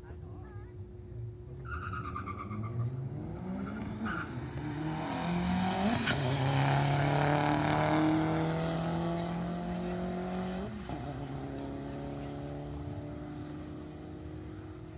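Two cars accelerating hard down a drag strip on a quarter-mile run. Their engines rev up in pitch and drop back at each gear change, grow loudest as they pass the middle of the strip, then fade away down the track.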